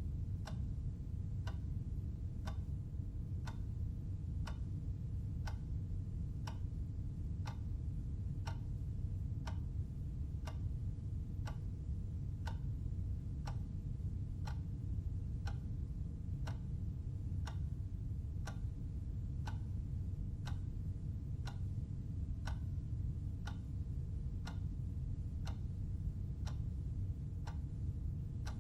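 Clock ticking steadily with even, sharp ticks, over a steady low hum.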